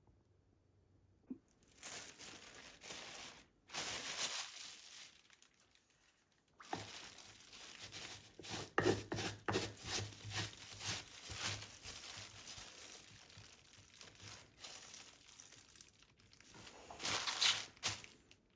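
Crinkling and rustling in irregular bursts, with a couple of short pauses and a louder burst near the end.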